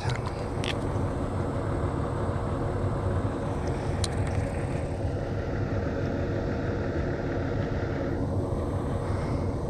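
A steady mechanical hum, like an engine or motor running at a constant speed, with one or two faint clicks.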